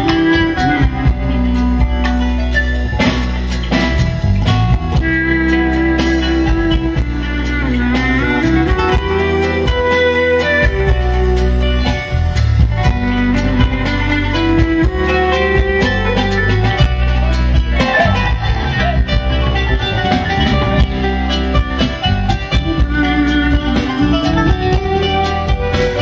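Live instrumental band music: a clarinet carrying a melody that glides in pitch, over plucked kanun, guitar, bass guitar and drum kit.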